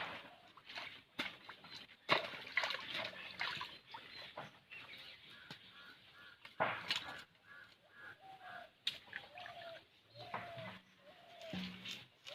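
A bird calling in a series of short falling notes, about one every second in the second half, over scattered sudden splashes and squelches of mud and water.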